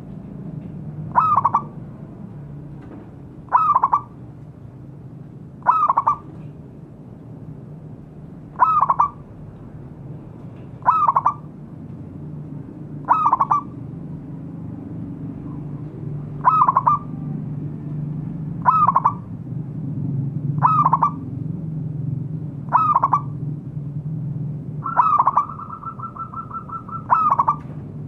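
Zebra dove (perkutut) cooing: a short call repeated about every two seconds, about a dozen times. Near the end comes a longer, rapidly pulsed call lasting about two seconds, all over a steady low background hum.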